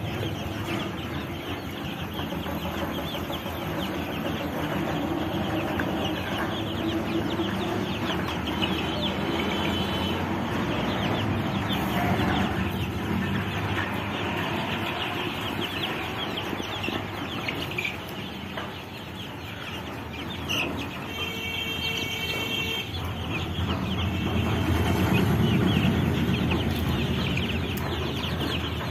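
A dense, continuous chorus of high peeping from a large brood of chicks about two weeks old, many birds calling at once, over a steady low rumble.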